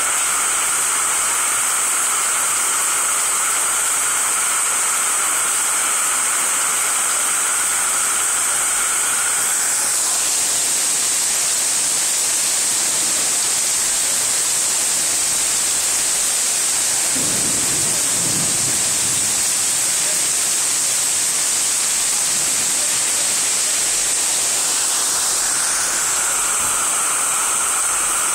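Heavy rain pouring down onto a street in a steady, loud hiss of downpour.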